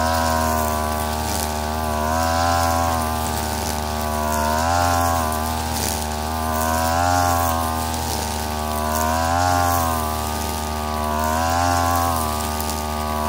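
STIHL FR3001 backpack brushcutter's two-stroke engine running at high speed while its nylon line cuts grass. The engine note rises slightly and swells about every two seconds as the cutter is swept back and forth.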